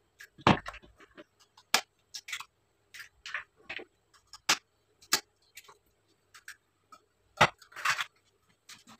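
Raw eggs being cracked against a bowl one after another: irregular sharp clicks and taps of breaking shell, with a few louder knocks spread through.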